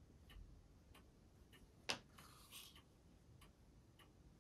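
Near silence with faint, regular ticking, about one tick every two-thirds of a second, and one sharper small click a little before the two-second mark followed by a brief soft rustle.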